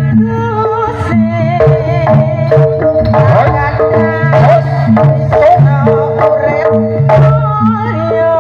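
Live Javanese folk-troupe music: hand drums beating a quick, driving rhythm over sustained melodic tones.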